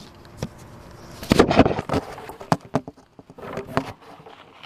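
Camera handling noise: irregular knocks and rubbing on the microphone, loudest about a second in and again near the end, as the lens is covered.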